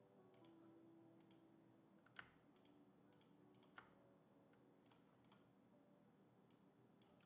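Near silence with several faint, scattered clicks of a computer mouse and keyboard.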